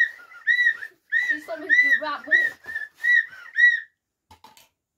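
Plastic toy whistle blown in a string of short, shrill toots, about two a second, stopping about four seconds in.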